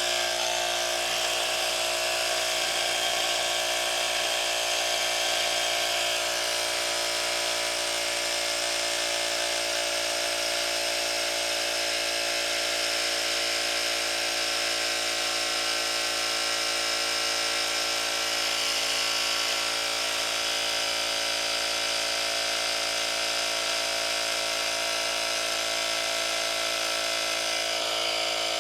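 Budget 12-volt mini tyre compressor running steadily, its small electric motor and piston giving a continuous buzz as it inflates a motorcycle front tyre up from zero pressure.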